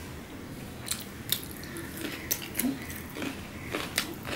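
A man chewing a mouthful of hand-mixed rice, with soft wet mouth clicks and smacks scattered through it.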